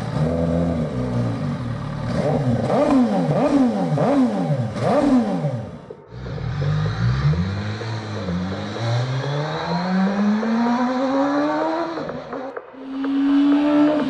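MV Agusta Rush 1000's inline-four engine through SC-Project titanium exhaust cans, revved in several sharp blips of the throttle. After a brief break, the engine note climbs steadily for a few seconds as the bike accelerates, then cuts off, and a high steady note comes in near the end.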